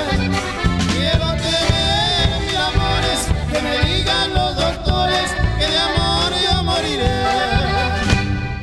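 Norteño band music: an accordion melody over a steady bass and drum beat, breaking off right at the end.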